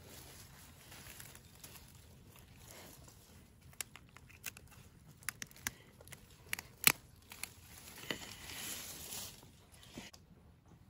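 Hand pruning shears cutting celery stalks at the base: a series of sharp clicks and snaps, the loudest about seven seconds in, followed by a short rustle of the stalks and leaves.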